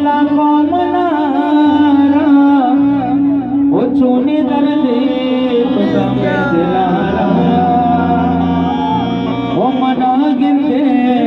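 Man singing a Balochi song into a microphone, his voice sliding and ornamented on long phrases, over instrumental accompaniment with a steady drone.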